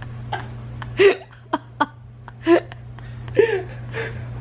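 A person laughing helplessly and out of breath, in short gasping bursts about a second apart, over a steady low hum.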